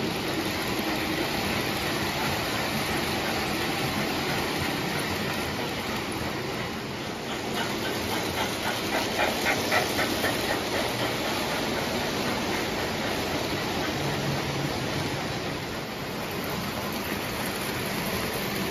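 Lionel O gauge electric toy trains running on a layout, giving a steady rumble of motors and wheels on track. About eight seconds in it grows louder, with a quick run of clicking as a steam locomotive, its tender and passenger cars pass close by.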